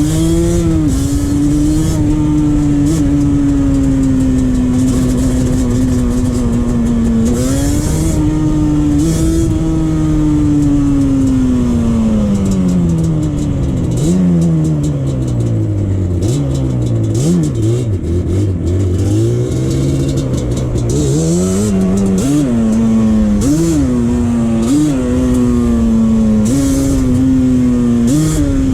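Yamaha Banshee 350's parallel-twin two-stroke engine running under way, holding steady revs at first. About halfway through the revs drop off low, then near the end they rise again in a series of quick up-and-down revs.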